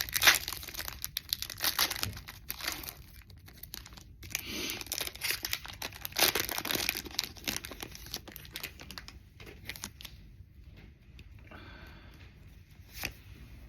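A foil Pokémon booster pack being torn open and crinkled, then cards sliding out of the wrapper. Irregular tearing and crackling, busiest over the first seven seconds, then thinning out.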